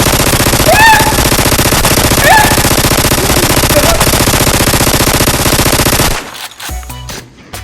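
Rapid automatic gunfire, a machine-gun burst standing in for a Nerf blaster firing, about six seconds long and cutting off suddenly. Two short rising cries sound over it about a second in and a little after two seconds.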